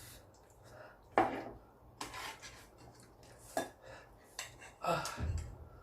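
Eating utensils clinking and scraping against a bowl of ramen, several separate clinks a second or so apart.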